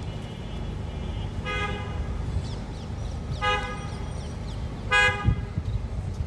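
A vehicle horn sounding three short beeps, roughly one and a half to two seconds apart, over a steady low street rumble.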